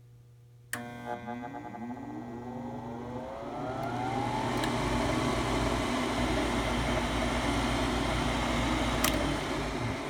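Coleman 95.5% gas furnace's draft inducer motor switching on with a click, its whine rising in pitch as it spins up over about three seconds, then running with a steady rush of air. Another sharp click comes near the end. This is the inducer that the owner says struggles and makes noise starting up.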